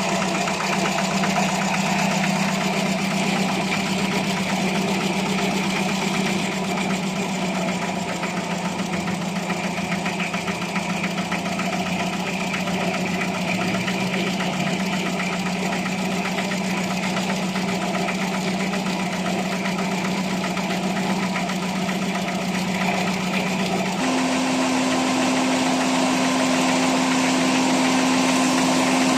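Carbureted car engine idling with a steady note that steps up to a higher idle speed several seconds before the end.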